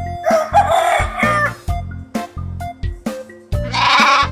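Rooster crowing about half a second in, with a second, harsher fowl call near the end, over background children's music with a steady beat.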